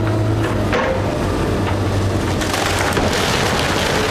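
Komatsu excavator's diesel engine running steadily while its demolition grapple crushes the roof of a wood-frame house. The wood cracks and splinters, building into a dense crackle from about two seconds in.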